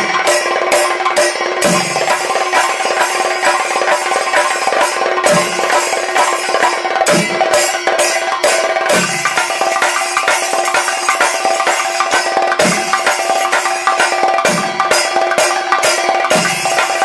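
Kerala chenda drums in a double thayampaka, played with sticks in the naaliratti section: a fast, unbroken stream of strokes with a deep accented beat about every two seconds.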